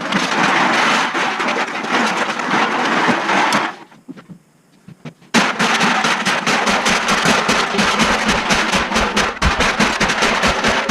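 Aluminum cans being crushed: loud rattling, crunching noise that breaks off into a short lull about four seconds in, then a dense run of rapid crunching, clattering impacts.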